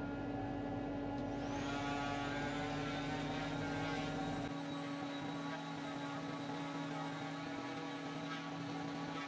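Electric random orbital sander running steadily with a hum, sanding a cured epoxy resin and wood tabletop; from about a second and a half in, a rasping hiss of the abrasive disc on the surface builds up and carries on.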